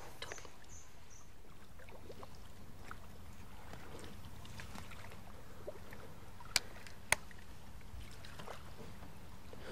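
Quiet lakeside ambience: faint water lapping at a wooden jetty over a steady low rumble, with scattered small ticks. Two sharp clicks about half a second apart come a little after the middle.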